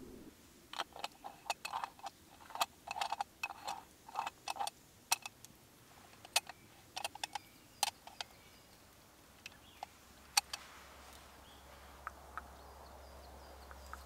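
Moka pot handled and assembled: a quick run of sharp metal clicks and taps as the parts and a coffee tin are handled, thinning out after the upper chamber is screwed onto the base, with a few last clicks about ten seconds in.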